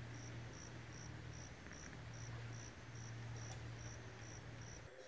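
An insect chirping steadily in short, high, evenly spaced chirps, about three a second, over a steady low hum that stops shortly before the end.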